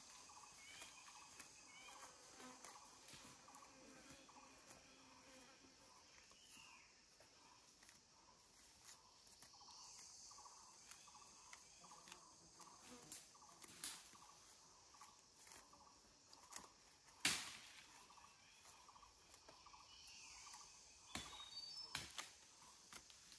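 Near-silent forest ambience: a faint insect hum with a few short high chirps, broken by a few sharp clicks, the loudest about 17 seconds in.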